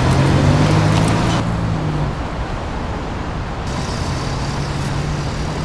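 Street traffic noise with the steady low hum of a running engine. The high hiss drops away abruptly about a second and a half in.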